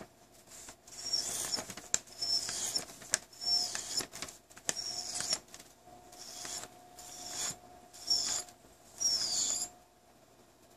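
Wet synthetic sharpening stone rubbed against the back of a steel universal curette in short semicircle strokes, recontouring the back of the instrument. It makes a series of short rasping strokes, about one a second, each with a high squeak, and they stop near the end.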